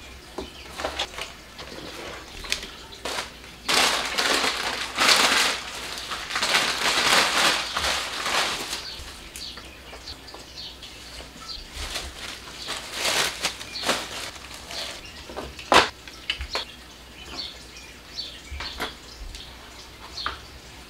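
Plastic bread bags and grocery packaging rustling and crinkling as they are lifted and moved, with knocks of containers and bottles being picked up and set down on a tiled countertop. The rustling comes in bursts, and one sharper knock stands out late on.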